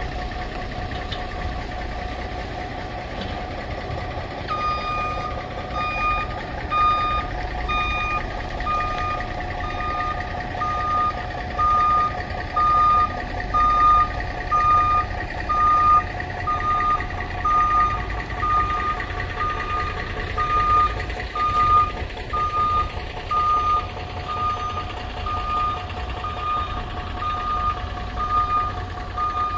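A truck's backup alarm beeping at an even pace, about one and a half beeps a second, starting a few seconds in, over the steady running of a 2005 GMC C5500's 8.1-litre gas V8 engine.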